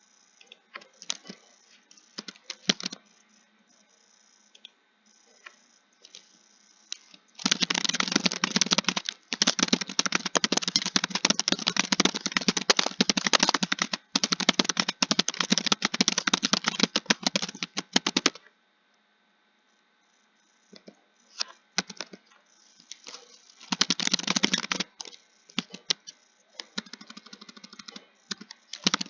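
Typing on a computer keyboard: a few scattered keystrokes, then about ten seconds of fast, continuous typing broken twice by brief stops, a pause of about two seconds, then shorter bursts of keystrokes.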